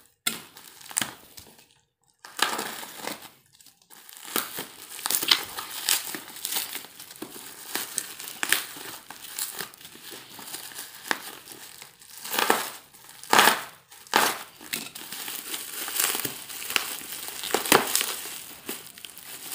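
Plastic parcel wrapping crinkling and rustling in irregular bursts as hands pull it open from the side.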